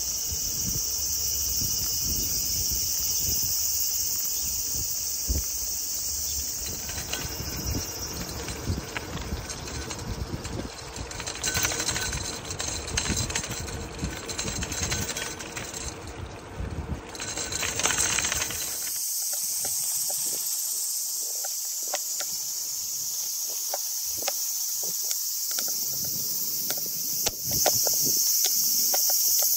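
Outdoor insect chorus, a steady high-pitched shrill that never lets up. A low rumbling noise lies under it and stops suddenly about two-thirds of the way in.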